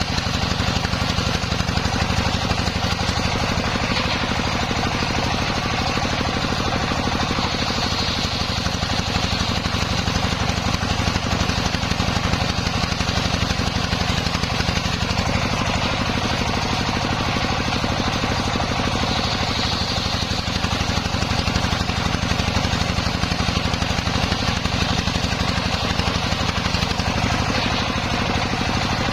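Homemade circular saw rig running steadily with a constant machine drone and a fast low pulse. A higher hiss swells briefly about eight seconds in and again near twenty seconds.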